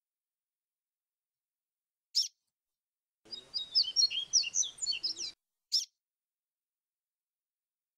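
Yellow-bellied seedeater (papa-capim) singing a quick, warbled 'grego flautado' phrase about two seconds long, with a single short high call note shortly before it and another just after.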